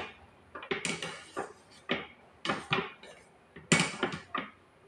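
Metal skimmer scraping and clinking against an aluminium stockpot as cooked fish balls are scooped out, in about five short clattering bursts.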